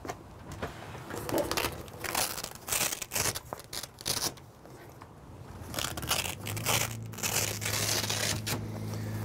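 Velcro strips on a pop-up camper's canvas door being pulled apart: a series of short ripping tears with fabric rustling, and a lull in the middle.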